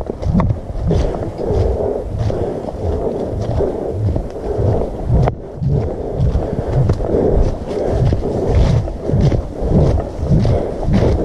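Footsteps of a hiker walking through dry fallen leaves, a steady walking rhythm of about two thuds a second with crunching and rustling leaves, and rumble from the camera jostling with each step.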